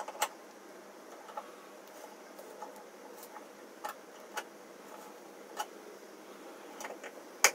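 A hex key turning a screw-in threaded insert nut into wood, heard as a series of light metal clicks and ticks, about one a second, as the key is worked in the insert's hex socket. There is a sharper, louder click near the end.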